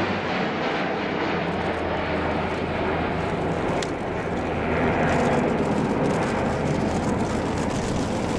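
Airbus A400M Atlas's four Europrop TP400-D6 turboprops and counter-rotating propellers, a steady loud drone with a low hum under it as the airlifter flies its display, swelling slightly about five seconds in.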